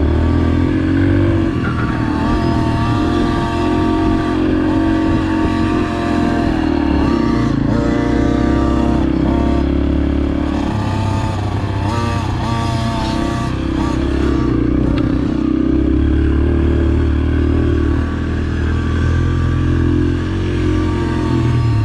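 Dirt bike engine being ridden, revving up and falling back several times, over a steady low rumble.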